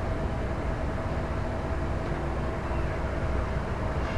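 Steady background hum and hiss, with a low rumble and a thin constant tone, from the recording microphone's surroundings; no speech.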